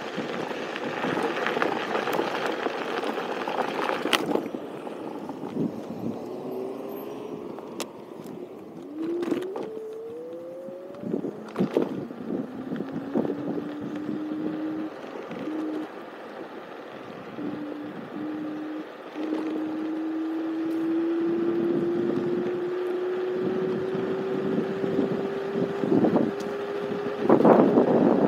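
Electric scooter motor whining as it rides, a single tone that sweeps up about ten seconds in, then climbs slowly in pitch as the scooter gathers speed. Wind rushes over the microphone at the start and again near the end, with a few sharp knocks from bumps in the path.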